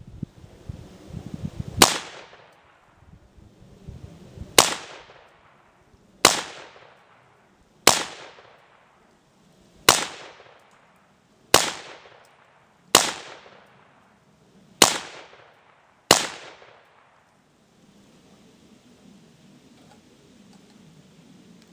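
Colt Sporter Lightweight AR-15 in 7.62x39 fired semi-automatically: nine shots, about one every one and a half to two seconds, each with a ringing tail. The rifle is cycling reliably from a C Products 30-round magazine.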